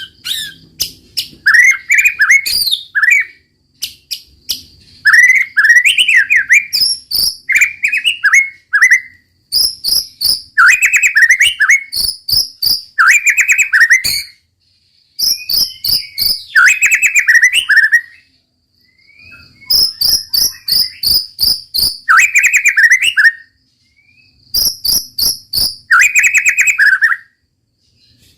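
White-rumped shama (murai batu) singing loudly in phrases of a few seconds with short pauses between them. Each phrase mixes fast runs of repeated high notes with lower, swooping whistled notes.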